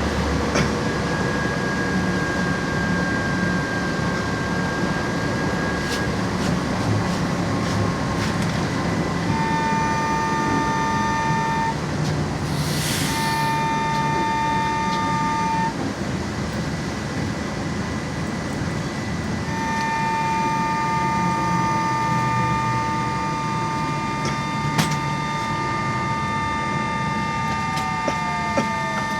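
LAZ E-183D1 trolleybus under way, heard from inside: a steady rumble of running gear and road, with a whine from the electric drive that comes and goes in steady tones and falls in pitch near the end. A short hiss about thirteen seconds in.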